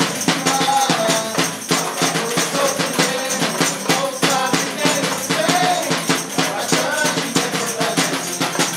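Background music: a song with a quick, steady tambourine and shaker beat under a melody.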